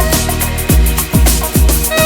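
Music with a steady beat: deep drum thumps about twice a second, under a held melodic line.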